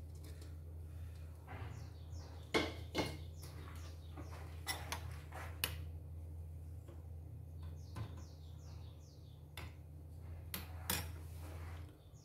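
Scattered sharp clicks and knocks of objects being handled, over a steady low hum that cuts off near the end. A small bird repeats quick runs of short descending chirps in the background.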